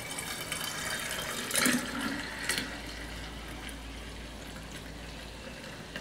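Hibiscus drink (zobo) being poured into a glass pitcher: a steady splashing pour of liquid, strongest around the first two seconds and then softer as the pitcher fills.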